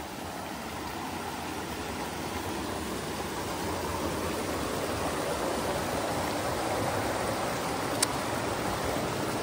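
Stream water spilling over a small wooden weir and churning into the pool below, a steady rush that grows gradually louder. A brief click near the end.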